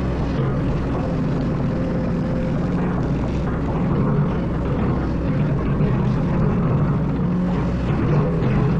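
Excavator's diesel engine running steadily with a deep, even drone, briefly louder about four seconds in and again near the end.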